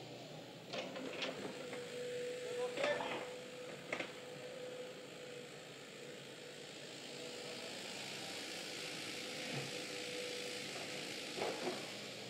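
JCB 8085 midi excavator heard from a distance: a faint steady whine from its engine and hydraulics, with a few short knocks and scrapes as the bucket digs into clay.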